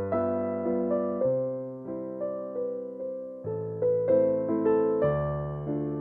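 Background music: a slow, soft piano melody, with notes struck and left to fade, a few each second, dipping quieter midway before rising again.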